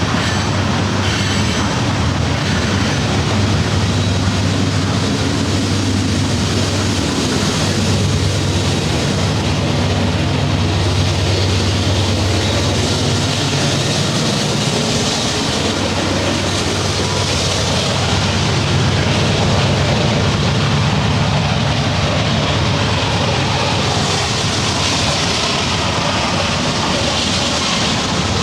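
Train rolling along the tracks: a steady rumble and hiss of wheels on rail, with a couple of clicks about a second in.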